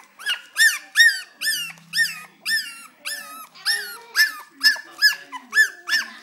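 Four-week-old Cocker Spaniel puppies crying: an unbroken run of short, high-pitched whining cries, each rising and then falling in pitch, about two to three a second.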